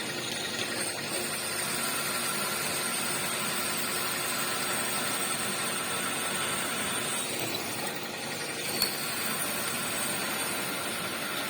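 Milling machine running steadily while drilling, a steady mechanical hum and hiss with a faint high whine. A single sharp click about nine seconds in.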